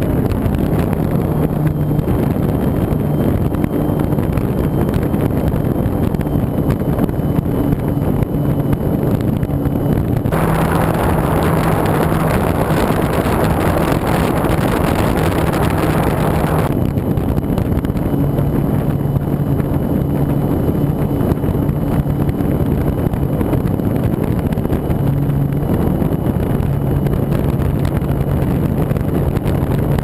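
Steady rush of wind over a camera mounted on a model glider during an aerotow climb, with the steady hum of the towplane's motor and propeller underneath. From about ten to seventeen seconds in the sound turns brighter and hissier, from the camera on the towplane, then returns.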